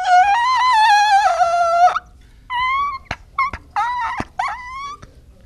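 A man's high-pitched laugh: one long wavering squeal of about two seconds, then a string of short rising squeals.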